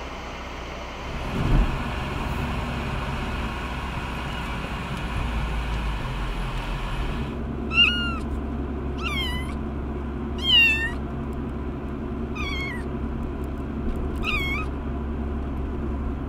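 A frightened kitten meowing over and over inside a plastic pet carrier, starting about halfway through, with about one meow every one and a half to two seconds. Under it runs the steady low rumble of the moving car, with a single thump a second and a half in.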